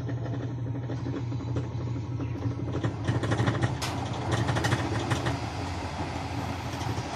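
Used-oil burner stove running with a steady low hum from its blower fan. Crackling from the burning oil sits on top, thickest about halfway through.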